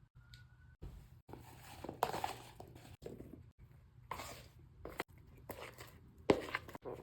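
Kitchen handling sounds during baking prep: irregular scrapes, rustles and clatters of utensils and containers, the loudest about two seconds in and near the end, broken up by several abrupt cuts.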